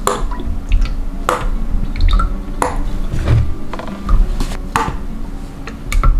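Light clinks and knocks of plastic and glass containers, about one every second, over a low hum while oil is poured in a thin stream into a plastic measuring jug on a scale.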